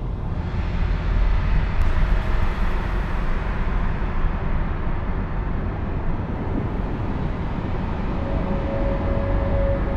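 Steady, dense rumbling noise, heaviest in the low end. A steady droning tone joins it about eight seconds in.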